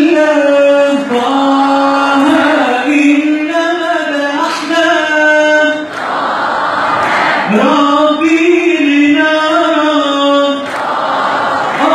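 Male singer performing an Islamic devotional chant (inshad) through a microphone and PA, holding long, ornamented sung notes, with many voices in the hall singing along.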